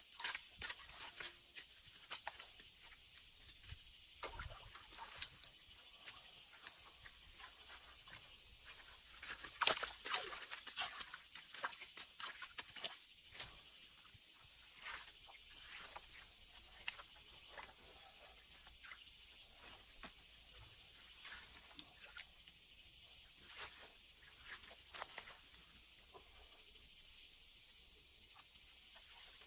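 A high-pitched animal call repeating at a steady pace, about once every second and a half, over scattered rustles and knocks.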